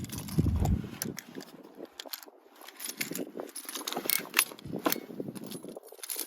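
Metal snow-chain links clinking and rattling in scattered, irregular clicks as the chain is handled and hooked at the bottom of the tire, with a low rumble of handling noise in the first second.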